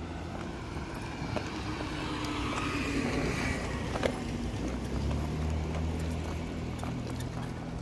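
A motor vehicle passing close by on the street. Its noise swells to a peak a few seconds in, and from about halfway a low, steady engine hum takes over.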